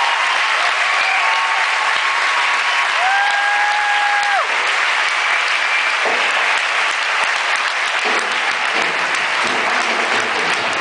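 Theatre audience applauding steadily at a curtain call. One long, held call rises from the crowd about three seconds in, and music begins to come in faintly near the end.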